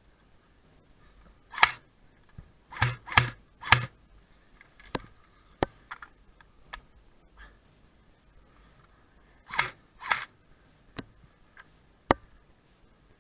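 Scattered airsoft gun shots and clicks: a single snap, then three in quick succession about three seconds in, a pair near ten seconds, and thinner clicks in between.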